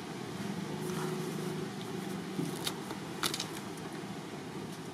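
Steady low outdoor background rumble, with a few short clicks about halfway through.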